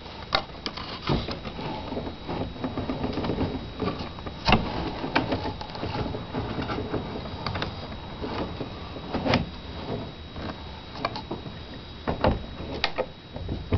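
Rotary boat steering helm being turned while its spiral-wound steering cable is fed in: light mechanical rattling and scraping of the cable and helm gear, with several sharp clicks and knocks.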